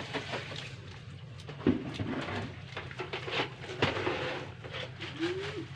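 Irregular knocks, clatters and wet slaps of harvested milkfish and shrimp being hand-sorted into plastic crates on a wet floor, over a steady low hum. The sharpest knock comes about one and a half seconds in.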